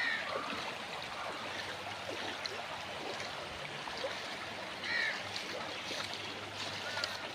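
Floodwater flowing with a steady rushing, trickling sound, broken briefly about five seconds in by a short high-pitched call.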